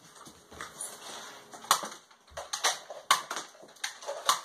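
Irregular series of sharp clicks and knocks, few at first and coming more often and louder in the second half.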